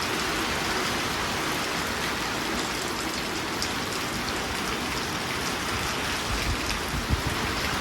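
Heavy rain falling steadily, with some low rumbling near the end.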